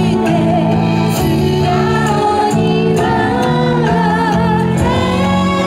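Yosakoi dance music playing loud, a singing voice over a bass line that moves in held notes.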